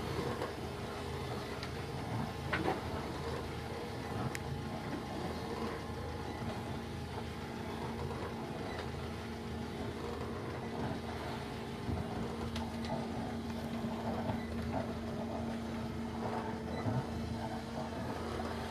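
Steady mechanical hum of a motor running, with several held tones, over a wash of wind and water noise and a few faint clicks.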